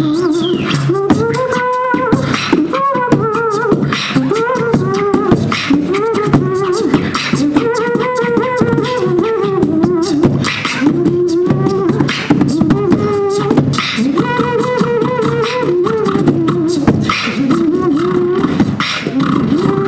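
Beatboxing trio performing through handheld microphones and a PA: mouth-made drum sounds with sharp clicks, a low steady bass hum and a vocal melody line that bends up and down over them.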